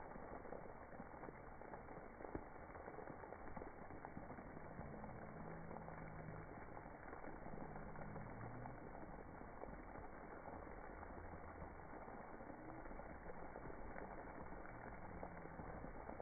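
Spray park water jets hissing steadily and faintly, the sound slowed and lowered in pitch by slow-motion playback. A few faint, deep, drawn-out tones come and go near the middle.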